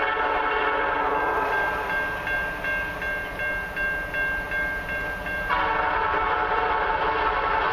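Diesel freight locomotive horn sounding for the grade crossing as the train approaches, dropping away for about four seconds and blowing again near the end. Between the blasts a level-crossing warning bell is heard ringing about three strokes a second.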